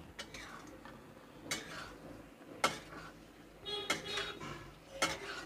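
Metal spatula stirring potatoes and peas in masala in a metal kadhai. It scrapes against the pan, with several sharp clinks, one ringing briefly.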